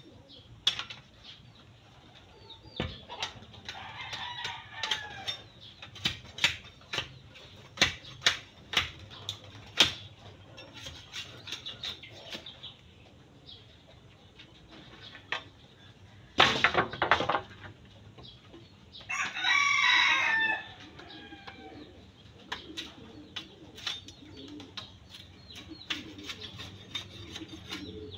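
Chickens calling, with a rooster crowing once, loud, about two-thirds of the way in, and a shorter call a few seconds in. Irregular sharp knocks throughout from a bolo blade striking bamboo poles.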